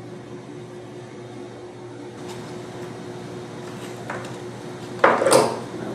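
Light knocks of wooden propeller parts being handled on a wooden workbench over a steady background hum, with a louder brief clatter about five seconds in.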